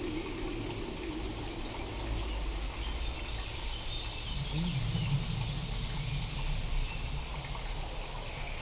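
Steady rain with a low rumble beneath it, sound-designed to sound alien. A warbling low tone wavers through it in the first second, and a deeper wobbling tone comes in about four and a half seconds in.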